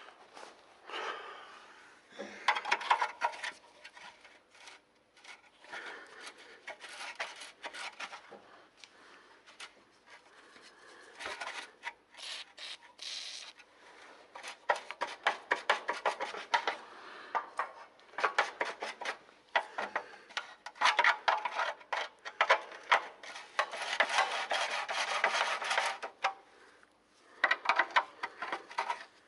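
Ratchet wrench clicking in repeated bursts of rapid clicks, a second or two each, as a rusty bolt is worked back and forth, unscrewed and screwed a little at a time.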